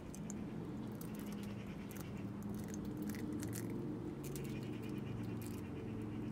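Eurasian red squirrel eating raw egg: faint scattered clicks and nibbling of its teeth on the egg and shell. Under it runs a low background hum.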